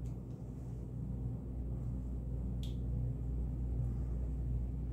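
Steady low hum with a faint click about two and a half seconds in.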